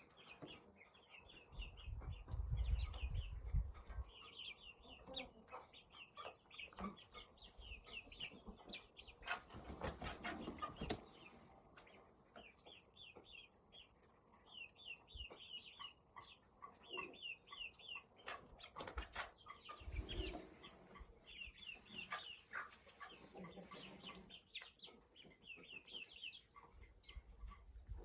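Birds chirping in quick repeated runs of short high notes, with scattered clicks and a brief low rumble a couple of seconds in.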